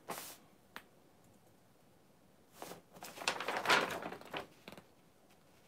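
A short burst of noise and a small click, then about two seconds of paper rustling and crinkling as an instruction sheet is picked up and handled, loudest around the middle.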